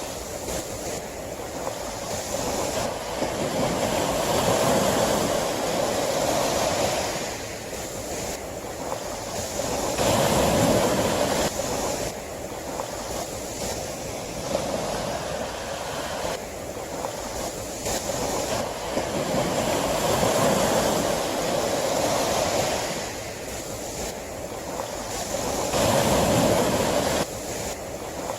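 Sea waves surging and receding, the rush of surf swelling and easing about every five to six seconds.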